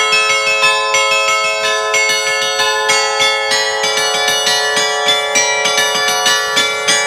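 A set of thirteen fixed bronze bells tuned in A, cast by the Allanconi foundry, played from a hand-lever keyboard that pulls their clappers by cable. It plays a fast festive allegrezza: quick overlapping bell strokes, about four or five a second, over the lasting ring of the bells.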